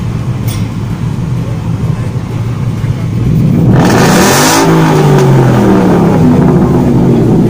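Ford Mustang GT's V8 engine running with its exhaust note, revved hard about halfway through with a sudden burst of exhaust noise, then the pitch falling away as the revs drop back.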